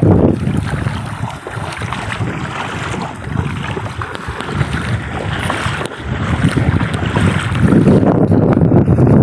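Feet wading through shallow seawater, sloshing and splashing with each step, with wind buffeting the microphone, heavier near the end.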